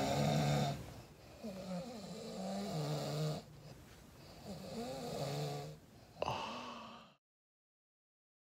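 A person snoring in slow, pitched snores, each about a second and a half long and a few seconds apart.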